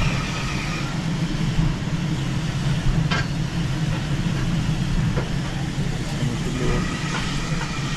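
Steam locomotive giving off a steady low rumble, with a few short sharp knocks about three, five and seven seconds in.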